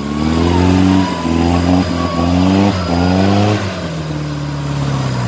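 Off-road jeep's engine revving hard as it spins its tyres in deep mud, stuck. The revs climb twice and then fall away near the end, with a higher whine rising and falling alongside.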